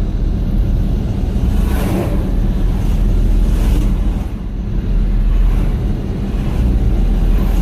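Street traffic rumbling steadily, with vehicles swelling past about two seconds in and again near four seconds, and wind buffeting the microphone.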